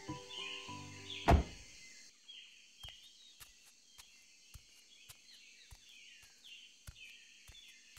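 Background music that ends about two seconds in with one heavy thump, the loudest sound here. After it come a man's footsteps on paving stones, about two a second, over repeated falling bird chirps.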